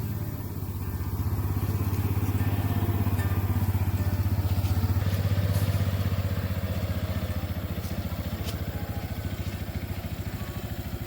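A small engine running steadily with a fast even pulse, getting louder about a second in and easing off after the middle, with a few light clicks or rattles over it.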